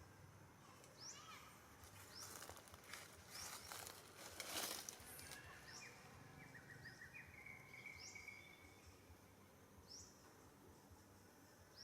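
Faint outdoor ambience. A bird repeats a short, high, upward-sweeping chirp every second or two, with a brief trill partway through. A spell of rustling comes near the middle.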